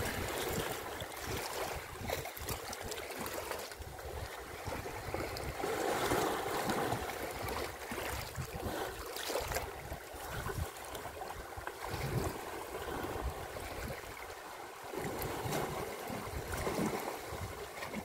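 Water sloshing and splashing as African elephants swim and wade in a waterhole, with wind buffeting the microphone.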